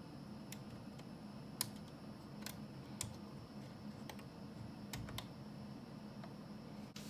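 Faint, scattered light clicks and taps, about nine at irregular intervals, as small parts of the selection box are handled, over a low steady hum.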